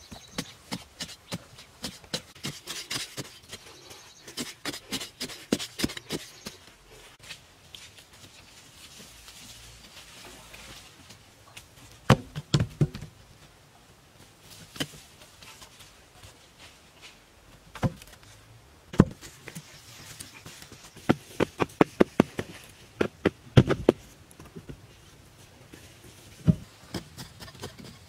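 A hand digging tool striking hard, dry soil, in runs of quick blows separated by pauses, with loose earth scraped and thrown.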